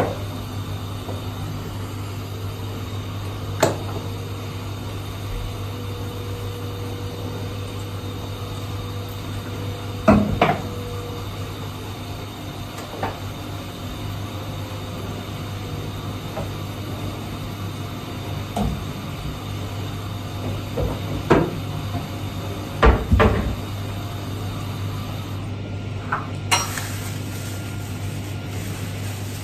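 Scattered knocks and clatters of household objects, about ten spread over the half-minute, the loudest around ten seconds in and a close pair near twenty-three seconds, over a steady low hum.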